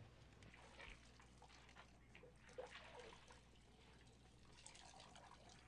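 Faint bathwater sounds, soft splashes and trickles in a bathtub, at near-silent level.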